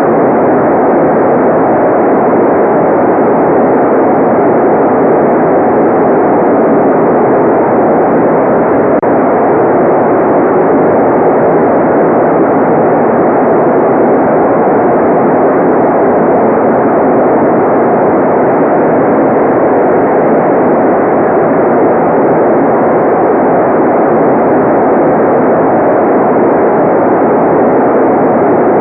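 A steady, unchanging relaxation noise track, a muffled hiss with most of its weight in the low-middle range and no high treble.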